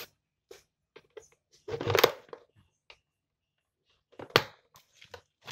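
Plastic blender motor housing being pried open with a thin screwdriver: scattered light clicks and scrapes, a longer scrape about two seconds in, and a sharp snap a little past four seconds as the housing's clip lets go.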